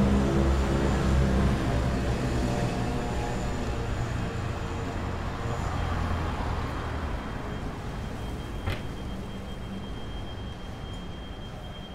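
Road traffic on a city avenue: a vehicle's engine hum, loudest at the start and fading as it moves away. A single sharp click comes about three-quarters of the way through, followed by a thin steady high tone.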